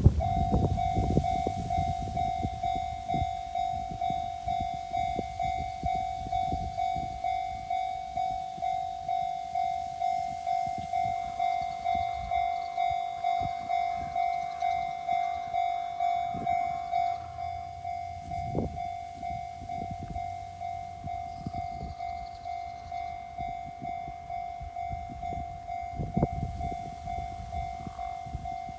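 Japanese railway level crossing's electronic warning bell starting suddenly and ringing steadily at about two strokes a second. About two-thirds of the way through it carries on more quietly.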